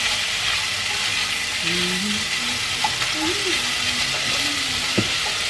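Food sizzling and frying in a saucepan on a gas stove, stirred with a wooden spoon. A man sings softly under it.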